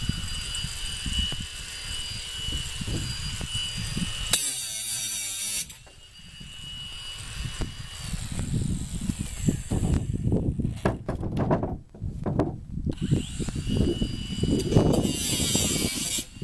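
Cordless drill run in several bursts: a steady motor whine that winds up and down, twice turning into a louder, harsher noise for a second or so. There are knocks and handling noises between the runs.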